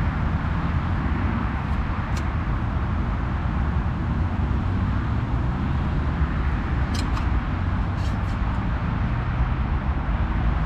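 Steady road-traffic rumble from the surrounding roundabout. A few light metal clinks from cooking pots being handled come about two seconds in and again around seven to eight seconds in.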